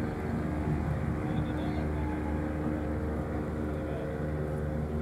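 A steady engine drone with an unchanging low hum.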